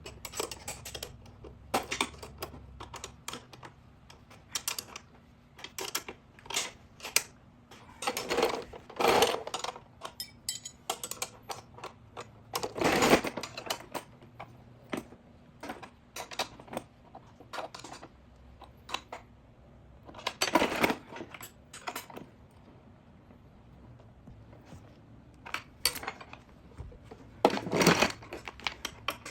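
Wrenches clicking and clanking on the metal frame of a mechanic's creeper as its 13 mm and 14 mm nuts and bolts are tightened: irregular runs of small clicks, with a few louder clattering knocks.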